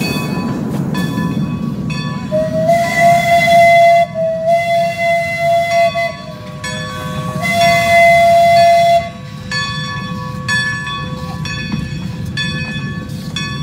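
Steam locomotive whistle blowing over the steady rumble of a train running on rails: a long sounding that starts about two seconds in, dips lower and quieter in the middle, comes back loud and stops about nine seconds in. After it, regular clicks about twice a second over the rumble.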